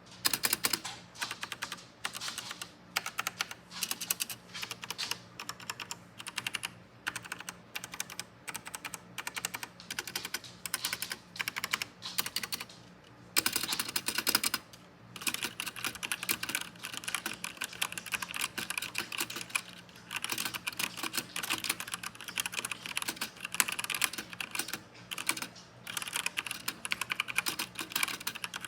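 Royal Kludge RK987 mechanical keyboard with stock brown tactile switches being typed on: a steady stream of keystroke clicks. There is a dense flurry of keystrokes about halfway through, then faster, more continuous typing.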